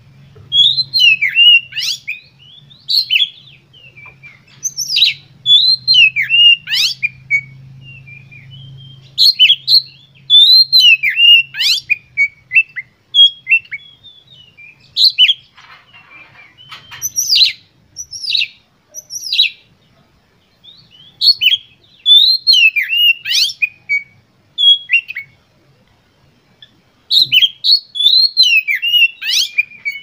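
Oriental magpie-robin singing in full voice: loud whistled phrases of quick rising and falling notes, delivered in bursts with short pauses between. This is the vigorous 'gacor' song used as a lure to provoke other magpie-robins into singing.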